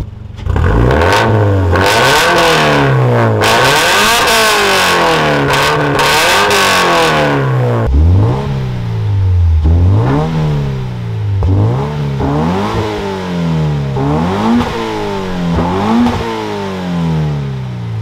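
2013 Scion FR-S's 2.0-litre flat-four boxer engine revving through a new Invidia cat-back exhaust: sustained revving for the first several seconds, then repeated revs that rise and fall about once a second. The note is deep but quiet, which the owner puts down to the resonator with stock headers and cats.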